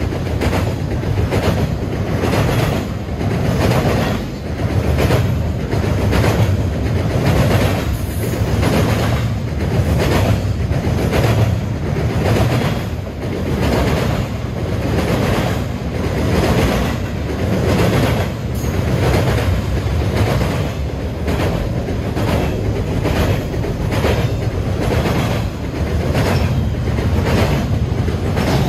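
Double-stack intermodal freight train's container well cars rolling past close by, a steady rumble of wheels on rail with rhythmic clickety-clack as the wheelsets pass over rail joints.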